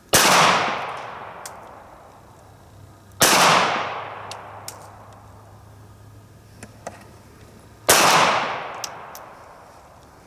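Smith & Wesson M&P Bodyguard .380 pocket pistol firing three single shots, three to five seconds apart, each with a long fading echo.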